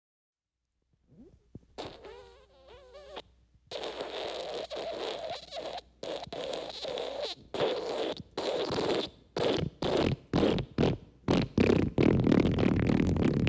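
Comedy fart sound effect: a short, wavering squeaky toot, then a long run of sputtering bursts with brief breaks, getting louder and ending in one long low blast.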